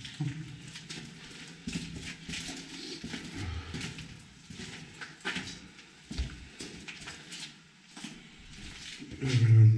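Footsteps on a hard tunnel floor: an irregular series of steps and scuffs.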